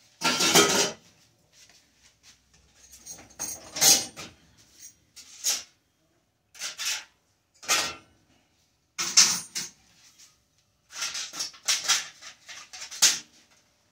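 Electric stove coil burners and thin metal drip pans being lifted out and set down: a dozen or so short clanks, rattles and scrapes of metal with gaps between them.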